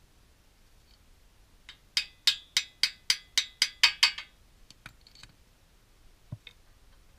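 Front brake rotor and hub struck about eight times in quick succession, roughly three blows a second, each a sharp metallic tap with a short ring, as the hub is worked into the steering knuckle. A few fainter clicks and one duller knock follow.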